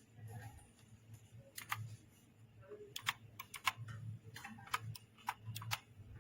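Typing on the AULA F2088 mechanical keyboard's blue switches: a run of sharp, irregularly spaced key clicks, some coming in quick clusters.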